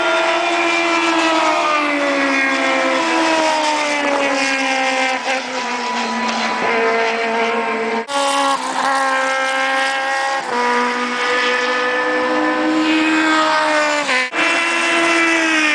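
Racing car engines running hard at a circuit, their pitch sliding down and stepping up and down with gear changes. The sound cuts off abruptly and jumps to a new engine note twice, about 8 and 14 seconds in.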